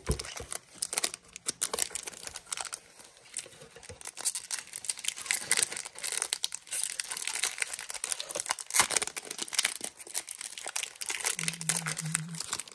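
Foil wrapper of a Pokémon trading card booster pack being crinkled and torn open by hand: a dense run of sharp crackles and rips.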